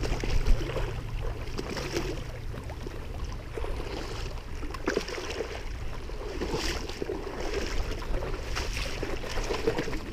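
Shallow water splashing and sloshing in short bursts as a hooked flounder is landed by hand, over a steady rumble of wind on the microphone.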